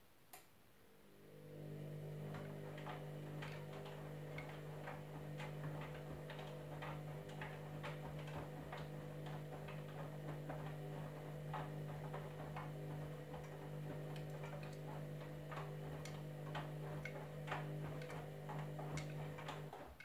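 Candy Grand'O Vita front-loading washing machine turning its drum in a wash tumble: the motor hum comes in about a second in after a click and cuts off just before the end, with irregular clicking and knocking from the laundry load over it.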